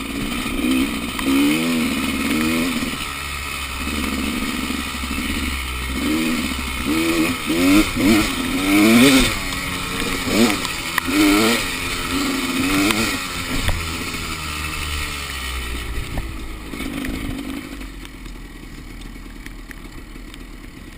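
Enduro motorcycle engine revving up and down over and over, its pitch rising and falling every second or so, then running more quietly near the end.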